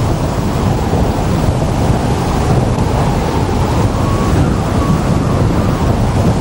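Wind buffeting the microphone: a loud, steady, low rumbling rush of air with no breaks, typical of airflow over a camera carried in flight.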